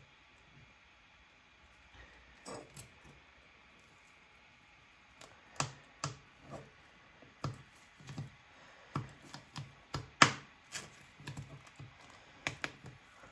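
Irregular light clicks and taps of small tools and parts being handled and set down on a work surface, sparse at first and then coming every half second or so, with one sharper knock about ten seconds in.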